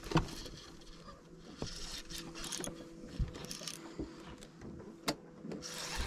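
Scattered light clicks and brief rustles from hands handling a baitcasting rod, reel and line, over a faint steady hum.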